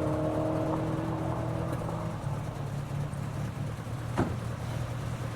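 Rally car's engine note fading as the car pulls away from the start, leaving a low steady engine rumble; one sharp click about four seconds in.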